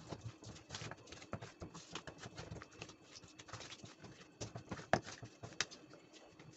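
A hand kneading stingray pieces in a wet coating of corn flour, turmeric and salt in a stainless-steel bowl: irregular soft squelches and taps of fish against the metal, with two sharper knocks about five seconds in.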